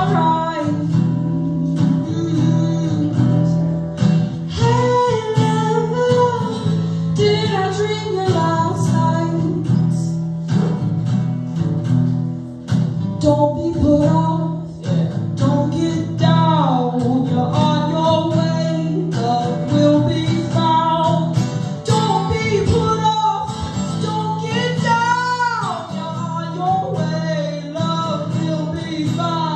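Live acoustic song: a woman singing lead over a strummed acoustic guitar, her held notes wavering with vibrato.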